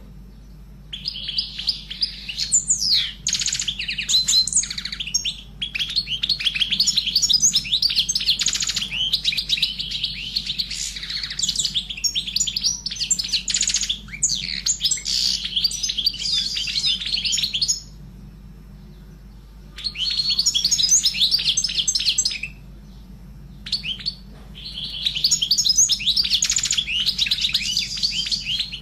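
Pet canary singing long, fast warbling phrases of trills and chirps, breaking off for a couple of seconds twice in the second half.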